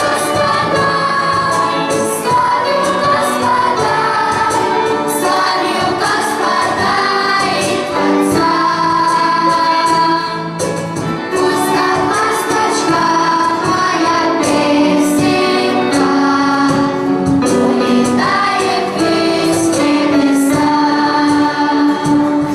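A choir of children and women singing a song with instrumental accompaniment and a regular percussion beat.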